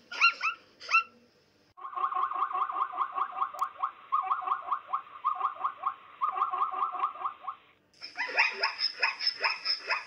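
Plains zebras calling: a few short yelps, then a long run of rapid barking calls at about four a second, broken by brief pauses, and a louder, denser burst of barks near the end.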